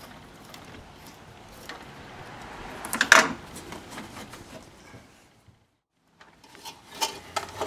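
Clicking, knocking and clattering of parts and tools being handled in a car's engine bay, with a louder clatter about three seconds in and a few sharp clicks near the end. The sound drops out completely for under a second past the middle.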